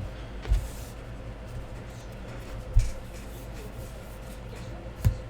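Trading cards being handled and flipped through, with light scratchy sliding sounds and three soft low knocks against the table, over a steady low room hum.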